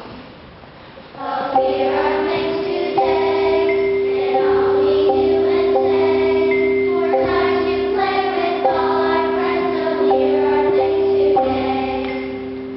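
Children's choir singing, starting about a second in, over steady held notes underneath; the singing eases off near the end.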